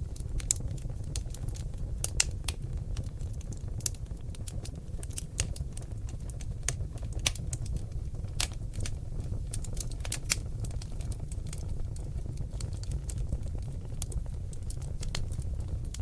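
Wood fire of seasoned oak logs burning in a fireplace: many sharp, irregular crackles and pops over a steady low rumble of the flames.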